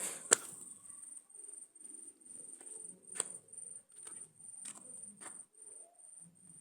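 An insect chirping in an even, high-pitched pulse throughout, with scattered clicks and knocks; a sharp click just after the start is the loudest.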